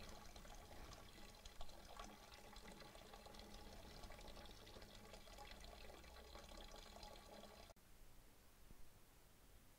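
Grape juice poured from a plastic bucket into a large copper cauldron: a faint, steady splashing pour that stops abruptly about three-quarters of the way through.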